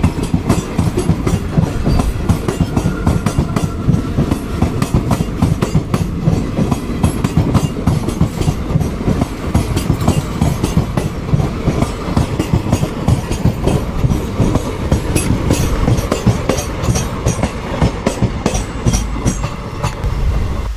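Passenger train coaches rolling past, their wheels clicking rapidly and steadily over the rail joints above a continuous rumble.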